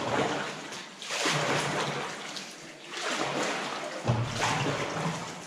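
Oar strokes splashing and sloshing in still water as an inflatable boat is paddled, several strokes in a row.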